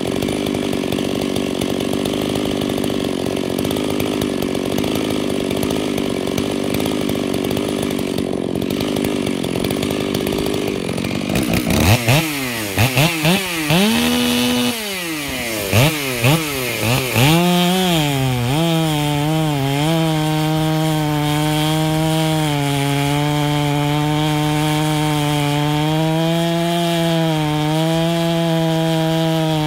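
Stihl chainsaw running steadily. From about twelve seconds in, the throttle is blipped several times, the pitch rising and falling. The saw then settles into a steady high-revving cut through a large log, its pitch wavering slightly under load.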